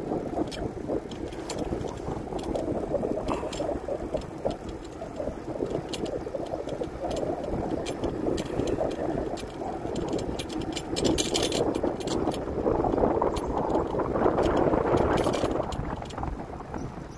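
Bicycle rolling along a grooved concrete road: a steady rush of tyre and wind noise with frequent rattling clicks from the bike.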